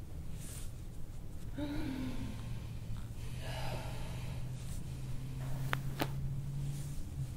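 A person's short vocal sound falling slightly in pitch, then a breathy exhale, during a chiropractic back adjustment. Two sharp clicks come a fraction of a second apart near the end, over a steady low hum.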